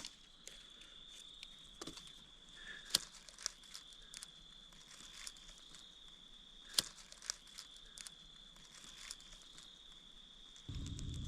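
Small fire, lit with homemade dryer-lint and wax fire starters, crackling with sparse sharp pops over a steady high insect trill. Near the end a louder low rushing sound comes in.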